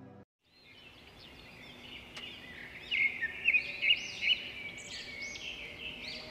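Music cuts off suddenly, and after a moment of silence songbirds fade in: many overlapping quick chirps and arching whistled notes, with a few short, loud chirps around the middle.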